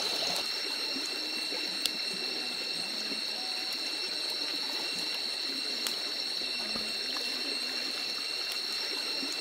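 Water trickling and flowing steadily, under an unbroken high-pitched ringing tone, with a couple of faint sharp clicks.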